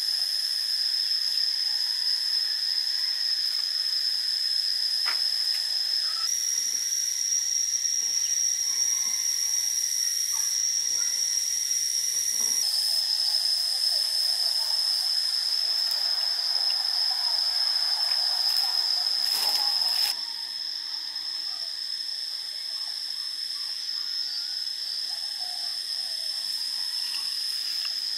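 Insects droning steadily at one high pitch. The pitch steps up slightly about six seconds in and back down about six seconds later, and the drone gets a little quieter about twenty seconds in. A few faint knocks and rustles sit underneath.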